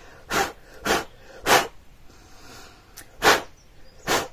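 A person blowing short, sharp puffs of breath into a sand-casting mold, clearing loose sand from the gear cavity: three quick puffs, a pause, then two more.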